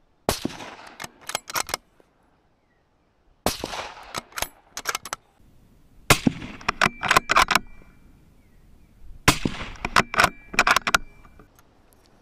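Four shots from a custom .308 Win bolt-action rifle, about three seconds apart. Each is followed by a quick run of metallic clicks as the bolt is worked to chamber the next round.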